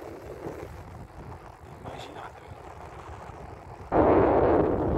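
Noise of riding a touring bicycle with the camera running: a low wind rumble on the microphone, then about four seconds in a sudden, much louder steady rushing noise.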